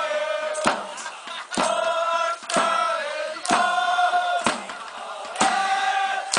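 Football supporters chanting in unison, holding long notes, to a drum struck about once a second.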